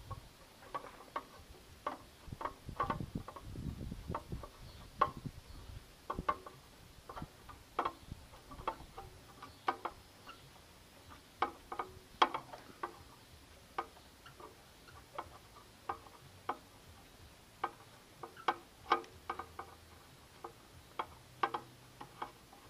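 Clear plastic blade guard on a benchtop table saw being worked by hand, clicking and clacking against its mount in irregular knocks, one or two a second, with the saw motor off.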